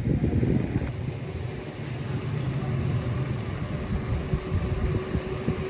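Motorcycle engine running with a dense, rough low rumble, joined about a second in by a steady hum.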